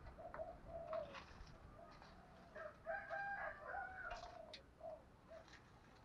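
Spotted dove cooing faintly in short groups of low coo notes. Around the middle, a louder, higher call from another bird sits over the coos.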